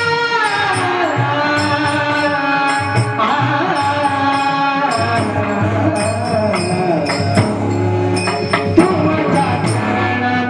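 Marathi devotional bhajan music: a gliding melodic line over drum strokes and small hand cymbals jingling in a regular beat.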